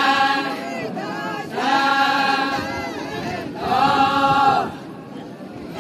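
A group of women singing a chant in unison while dancing: three long held phrases, each about a second and a half, with short breaths between.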